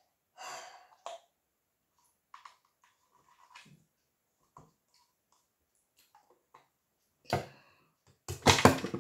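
Small clicks and rustles of a plastic cream tub and its lid being handled, with two louder sudden noises near the end, the second a quick cluster of clacks.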